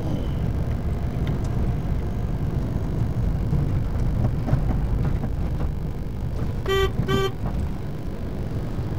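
Car driving along a narrow paved road, heard from inside the cabin as a steady low engine and road rumble. A horn gives two short toots in quick succession about seven seconds in.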